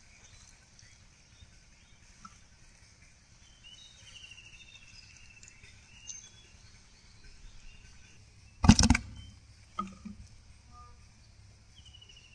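Quiet outdoor background with a bird giving a short falling trill twice. About nine seconds in there is a sudden loud slap, and a smaller one about a second later, from handling the hooked fish and bottle traps on the wet bank.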